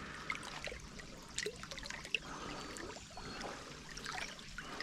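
Faint trickling water, with scattered small clicks and scrapes.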